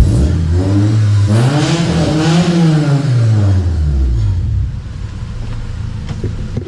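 Jeep Grand Cherokee SRT V8 with Borla ATAK mufflers and a resonator delete revving once: the pitch climbs for about a second and a half and falls back over about the same time, then settles into a quieter steady run.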